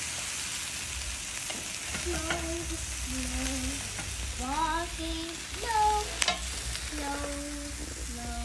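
Pork belly and chicken sizzling over glowing charcoal on a kettle grill, a steady hiss. One sharp click comes a little past six seconds in.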